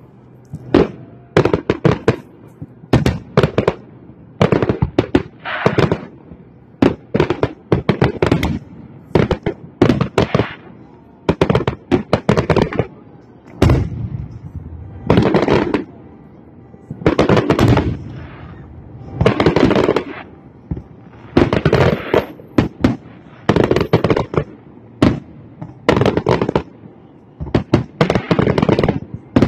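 Aerial fireworks shells bursting in a continuous barrage, a cluster of booms and crackles about once a second.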